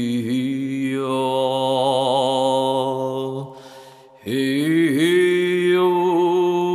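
A person's voice chanting long, sustained tones on a steady pitch, the vowel shifting about a second in. A pause for breath a little past halfway, then a new held tone a little higher.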